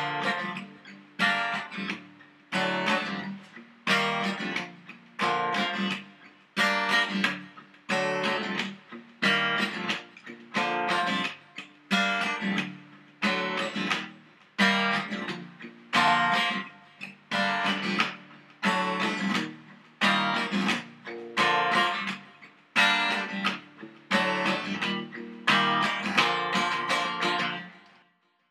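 Acoustic guitar music: chords strummed at an even, unhurried pace, each ringing out and fading before the next, stopping shortly before the end.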